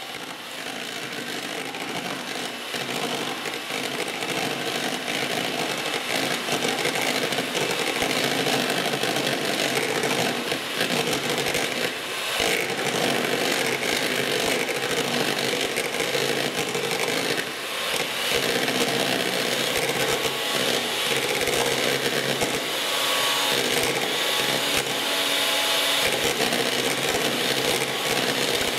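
A 1980s Gorenje MGA electric hand mixer (type M202, 130 W) running, its twin beaters whisking cream in a plastic bowl as the cream thickens. The motor's whir with the beaters' churning grows louder over the first several seconds, then holds steady.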